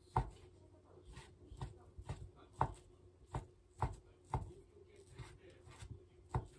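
Kitchen knife slicing fried fish cake into strips, knocking on a wooden cutting board at each stroke, about two knocks a second and unevenly spaced.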